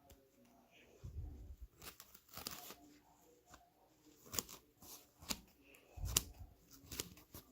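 Scissors snipping through a foam sponge: rustling cuts about two seconds in, then a handful of sharp separate snips through the second half, with a couple of low handling bumps.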